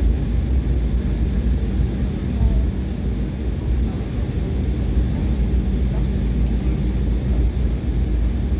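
Steady low rumble and hum inside the cabin of a vehicle moving slowly across an airport apron.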